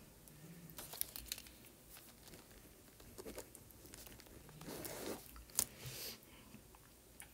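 Faint handling sounds: soft rustling with a few short sharp taps of a stylus on a tablet screen, the loudest tap a little over five seconds in.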